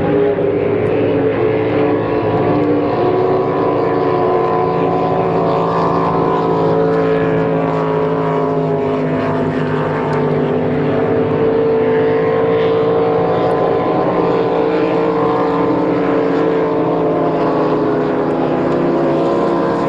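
Racing boat engines running steadily, with several engine tones drifting slowly up and down in pitch against one another.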